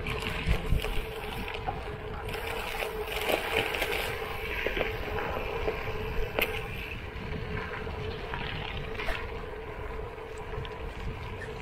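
Gravel bike tyres rolling over a gravel road, a steady crunching hiss with wind on the microphone, and a few sharp clicks scattered through it.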